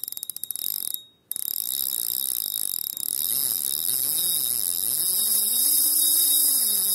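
Spinning reel's drag buzzing as line is pulled off against it, its click rate rising and falling in slow waves. A short break about a second in interrupts it, and it fades out near the end.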